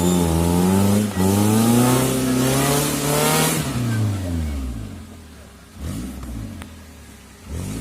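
Suzuki Jimny 4x4's engine revving hard, its pitch climbing for about three and a half seconds with a rushing hiss at the peak, then dropping away; two shorter revs follow near the end.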